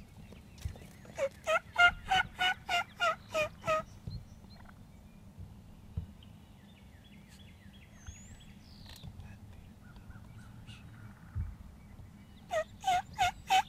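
Turkey calling in a rhythmic series of about nine notes, roughly three a second. A shorter series of about five notes follows near the end.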